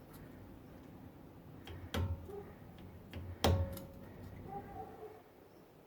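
Two sharp metal strikes, about two seconds and three and a half seconds in, the second ringing briefly: a hammer tapping a punch against a front brake caliper's retaining pin to drive it out. A few faint metallic ticks come between and after.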